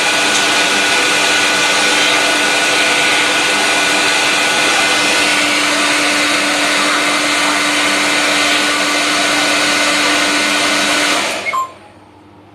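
Hair dryer blowing at a steady whirr, switched off about eleven seconds in and quickly spinning down.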